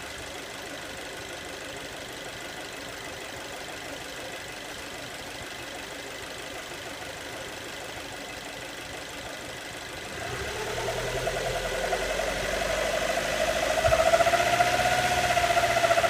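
Alfa Romeo Mito engine running with the owner's unexplained "weird engine noise": about ten seconds in, a wavering mid-pitched tone over a low hum comes in and grows louder to the end.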